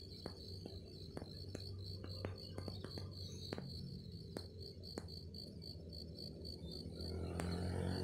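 Insects chirping in a steady, even pulse of high notes, about five a second, over a low hum. A broader rushing noise swells near the end.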